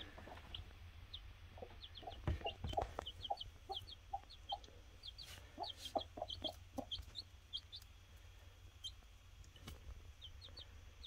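Newly hatched chicks peeping in short, high, quick notes, over soft low clucking from a broody hen. A couple of knocks sound a little over two seconds in.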